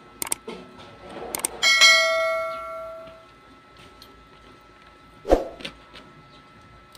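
Subscribe-button overlay sound effect: a few quick mouse clicks, then a bright bell ding that rings out and fades over about a second and a half. About five seconds in, a single sharp knock.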